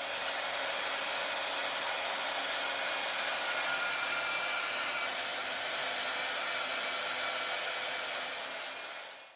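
Portable band saw cutting through 1/8-inch steel angle iron: a steady whir of the blade in the metal. It fades out near the end.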